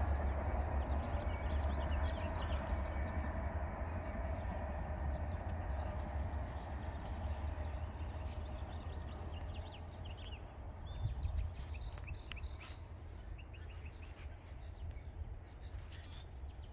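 Rumble of a receding freight train, an empty oil train of tank cars, low and steady and fading away. Birds chirp over it.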